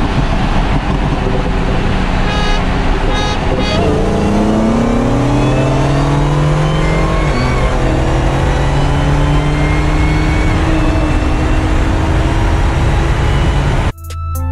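BMW M4 and Dodge Hellcat racing at full throttle, heard from inside one of the cars with heavy wind roar. The engine note climbs in pitch, drops at a gear change about seven seconds in, then climbs again. Music cuts in just before the end.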